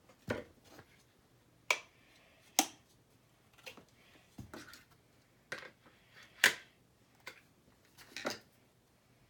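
Dyson Supersonic hair dryer and its magnetic attachments being handled: about a dozen sharp, irregular clicks and knocks, the loudest near the start and about six and a half seconds in.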